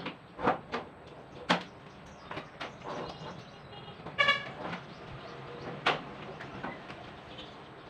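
Irregular sharp knocks and clatter from hand work on a repair job, the loudest about one and a half seconds in and near six seconds, with a short high-pitched tone about four seconds in.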